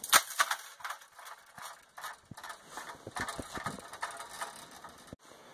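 Coiled copper tubing being handled and fitted over the forge's steel pipe, clicking and rattling irregularly, loudest about the first second and stopping abruptly near the end.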